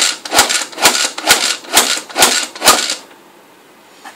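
Hand-operated plastic food chopper being worked in quick strokes, each a sharp clack with a short rattle of the blades through the chopped food in the bowl, about two a second. The strokes stop around three seconds in.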